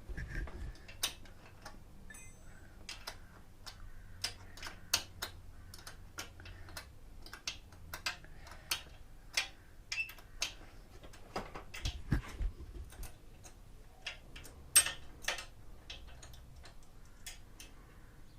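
Irregular sharp metallic clicks and light clinks of hand tools working bolts on the Honda C100 Super Cub, about one or two a second. There is a dull knock about twelve seconds in.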